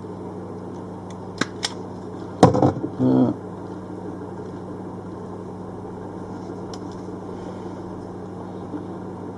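A few sharp clicks from a hand wire stripper taking the insulation off the end of a thin wire, the loudest about two and a half seconds in, over a steady low hum.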